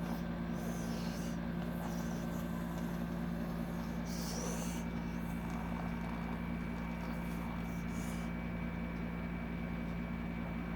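A young child fake-snoring: a few irregular snorts and breaths a few seconds apart, over a steady low electrical hum.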